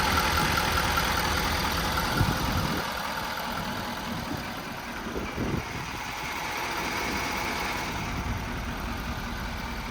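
Ford 6.7 Power Stroke V8 turbo-diesel idling steadily, growing quieter about three seconds in, with a few faint knocks.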